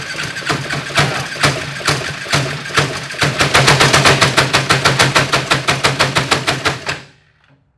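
Go-kart's Honda clone small engine running with a heavy knocking clatter, which becomes a fast, even rattle about three seconds in and stops suddenly near the end. It sounds like an old ice cream maker or a dryer shaking with the clothes on one side: the engine setup vibrates badly because the balanced crankshaft was cut down to take the two Honda clones.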